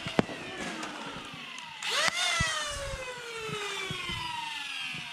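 Flywheel foam blaster's motors whining: they wind down in pitch, rev up sharply about two seconds in with a couple of sharp clicks as darts are fired, then spin down again in a long falling whine.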